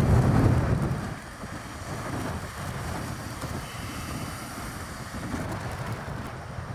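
Sea waves breaking against a stone harbour wall, with wind buffeting the microphone. The loudest surge dies away about a second in, leaving a steady rush of wind and sea.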